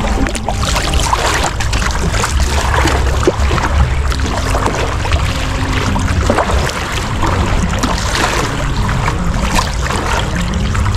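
Seawater sloshing and splashing close by as someone moves through it, over a steady low rumble.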